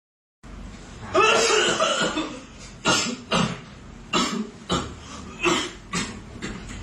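A person coughing: a long, rough cough about a second in, followed by a run of about six short, sharp coughs.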